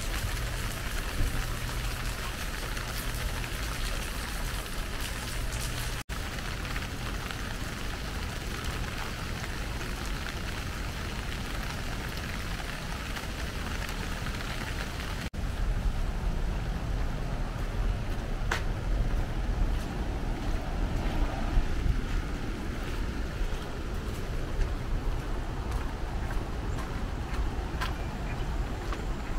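Wind rumbling on the microphone over a steady outdoor hiss, broken twice by abrupt cuts.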